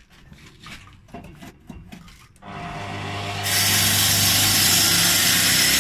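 A few light knocks and clicks, then a power saw starts up about two and a half seconds in and runs with a steady hum. About a second later it begins cutting, a loud harsh rasp that stops abruptly near the end.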